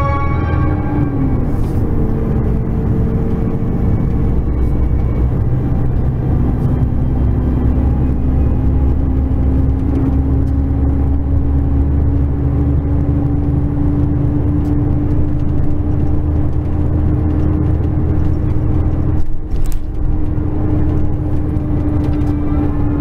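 Truck engine and drivetrain running with a steady low drone and a whine. The whine drops in pitch about a second in, then slowly climbs back as the truck gathers speed downhill. There is a brief break in the sound about nineteen seconds in.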